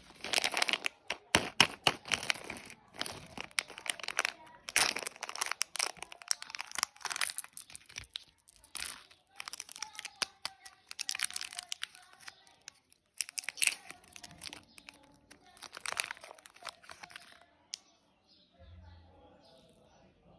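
Plastic candy wrappers crinkling and tearing in repeated sharp bursts as packets are pulled open, easing off near the end.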